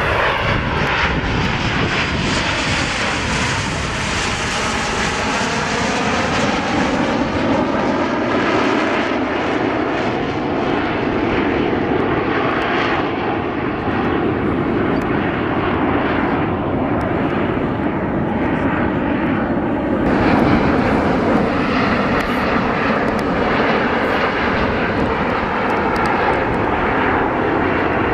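Canadair CT-114 Tutor jets, each with a single J85 turbojet, roaring steadily as the formation flies past. In the first few seconds a whine sweeps and bends in pitch as the jets pass.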